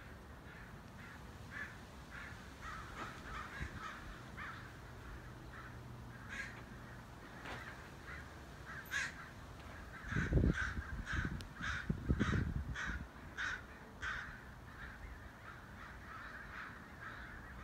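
Crows cawing repeatedly, short caws throughout with a quick run of them around the middle. Low rumbling on the microphone midway is the loudest sound.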